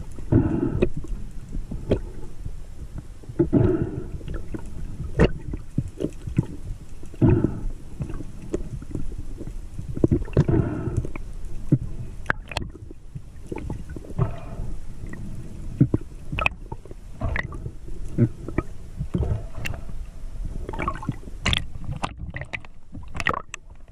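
Water sloshing and gurgling against an underwater camera, with a swish every few seconds and scattered sharp clicks. Near the end the splashing and clicks come thicker as the camera reaches the surface.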